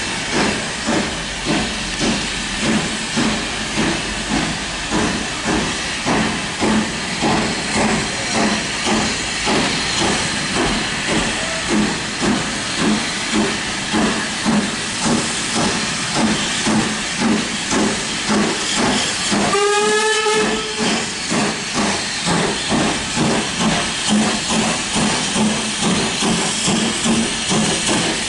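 Steam tank locomotive hauling coaches, working slowly with regular exhaust chuffs about one and a half a second over a steady hiss of steam. A short steam whistle blast sounds about twenty seconds in.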